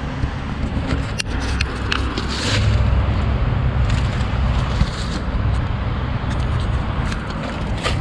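Carrier Round One heat pump outdoor unit running: a steady low hum with a haze of air noise over it. A few light clicks come through as the camera is handled close to the cabinet.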